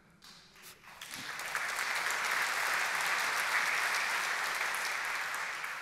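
Audience applauding: the clapping swells about a second in, holds steady, and dies away near the end.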